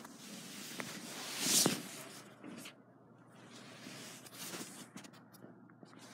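Rustling handling noise from a phone being moved against a hand and bedding, with a louder rustle about one and a half seconds in and a few faint clicks.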